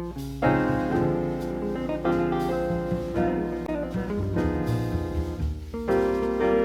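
Jazz piano playing held chords over a bass line, with fresh chords struck about half a second in, around two seconds in and again near the end.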